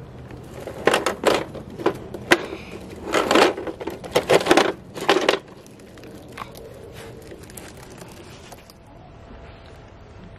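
Hanging fabric strips of a toy car wash brushing and scraping over a plastic Bruder toy street sweeper as it is pushed through: a run of rustling swishes lasting about four seconds, beginning about a second in.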